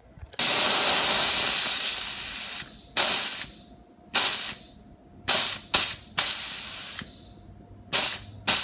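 McCulloch steam cleaner blowing steam from its nozzle in hissing bursts: one long burst of about two seconds, then a string of shorter, sharp-starting bursts as the trigger is pulled and released. The unit is heating and steaming again, its tripped thermal fuse freshly replaced.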